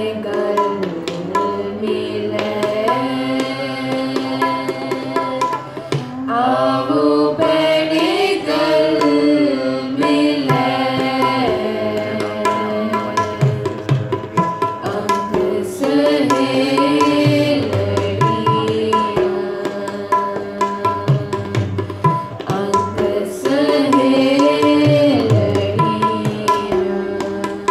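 Sikh kirtan: a woman singing a devotional hymn in long melodic phrases, accompanied by tabla played in a steady rhythm.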